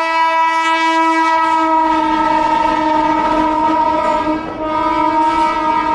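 Indian Railways train horn sounding one long, unbroken blast as a passenger train rolls into the platform, over the rumble and clatter of its wheels on the rails.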